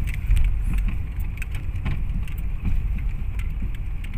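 A car's engine and road noise heard from inside the cabin while driving slowly: a steady low rumble with occasional light clicks.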